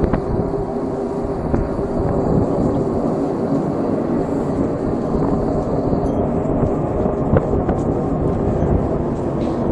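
Steady low rumbling drone heard outdoors, presented as an unexplained strange sound from the sky, with a few faint clicks.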